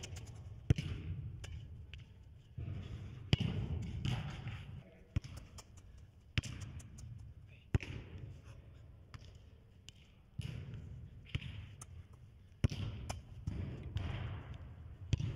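Football being kicked and trapped on artificial turf: a series of sharp thuds, irregularly spaced a second or more apart, with softer scuffing and rumble between them.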